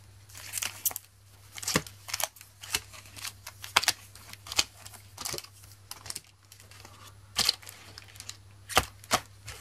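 Foil Magic: The Gathering booster-pack wrappers crinkling and rustling as hands pick up and stack the packs, in short irregular crackles.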